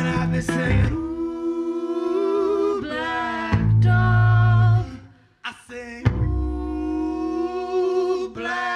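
Piano accordion playing held chords over deep bass notes, with a short break about five seconds in. A plucked guitar line stops about a second in.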